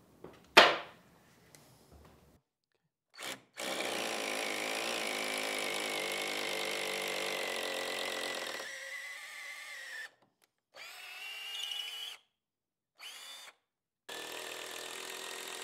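A sharp knock about half a second in, then an electric drill boring a bolt hole through a timber roof beam in several runs. Its whine sags slightly while it cuts, it stops, and it speeds up again when restarted.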